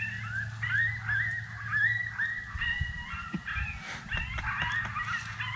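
A chorus of wild animal calls: many short, rising-and-falling calls overlapping, several a second.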